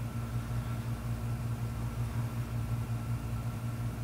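Steady low hum of running computer equipment and a spinning hard drive, with a faint high whine above it.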